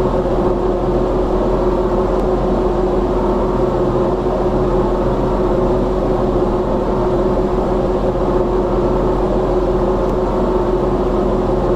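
Ceiling fan running steadily, its motor giving a constant hum with a steady pitched tone.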